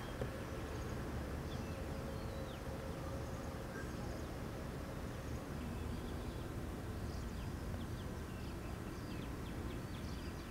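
Outdoor ambience: a steady low rumble with faint birds chirping, short high chirps that become more frequent near the end.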